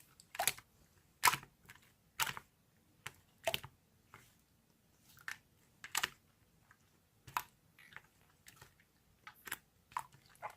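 About fifteen short, sharp clicks and taps at irregular intervals, with quiet between them.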